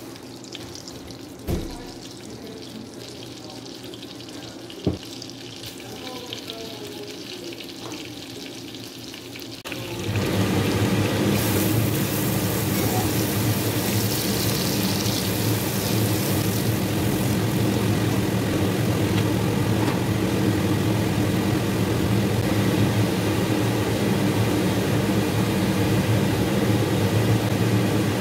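Butter and oil sizzling softly in an enamel pot, with two light knocks. About ten seconds in, a much louder steady noise starts, a hiss over a low steady hum, and it carries on unchanged.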